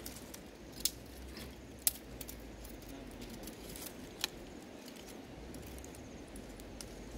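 Dry twigs and sticks being handled and broken, with three sharp snaps about one, two and four seconds in over a light rustle and a low steady rumble.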